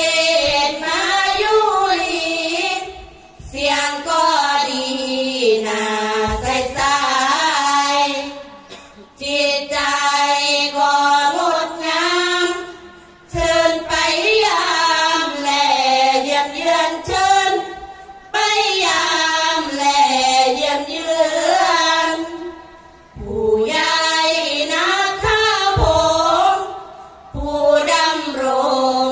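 A group of women singing sarabhanya, the Thai Buddhist devotional verse chant, together through microphones. The melody glides in long phrases of several seconds, with short breaths between them and no instruments.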